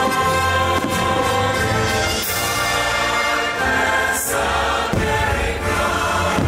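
Show music with a choir singing long, held chords over a full accompaniment. A few brief sharp hits cut through it along the way.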